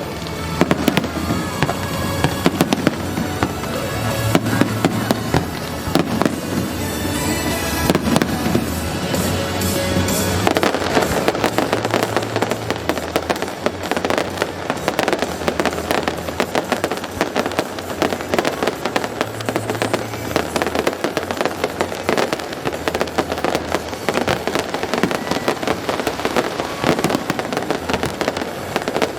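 Aerial fireworks bursting and crackling in rapid, unbroken succession, with music playing underneath.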